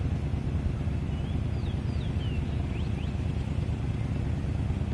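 Wind buffeting the microphone: a steady low rumble, with a few faint high bird chirps in the middle.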